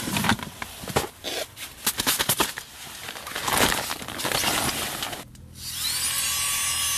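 Plastic snack packaging crinkling and rustling in the hands as it is handled and opened, with many sharp irregular crackles, stopping about five seconds in. Music begins near the end.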